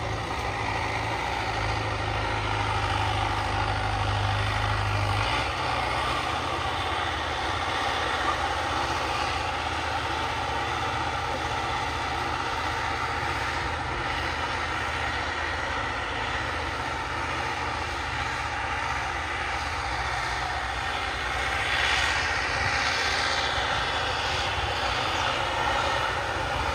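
Modified Farmtrac 6055 tractor's diesel engine running steadily under load as it pulls a cultivator through tilled soil. It gets louder for a moment about 22 seconds in.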